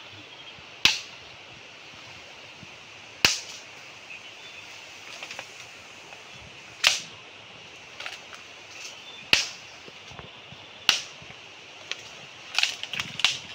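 Machete chopping into a standing bamboo culm: five sharp blows a couple of seconds apart, with lighter knocks between them and a quick run of small hits near the end.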